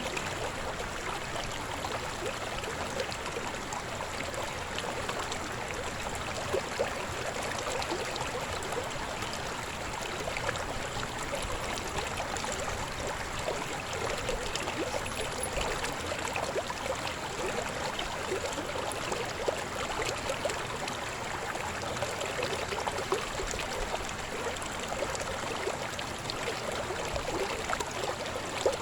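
Shallow river babbling steadily over rocks, a continuous rush of water with small splashes and gurgles.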